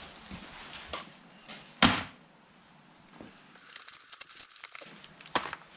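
A single thump a little under two seconds in, then the crinkle and rustle of a plastic courier satchel being slit and torn open with a blade, with a sharp click near the end.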